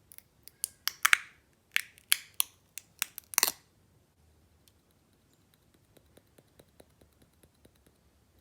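Clear slime being stretched and squished by hand, giving a run of sharp, sticky pops and clicks, then softer, quicker clicks in the second half.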